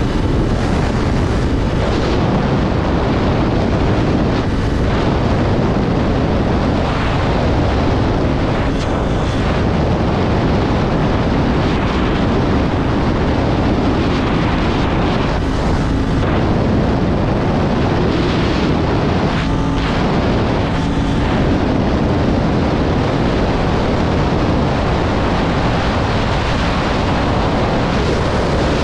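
Steady wind rush over an action-camera microphone on a Kawasaki 400 naked motorcycle at highway speed, with the engine running steadily underneath.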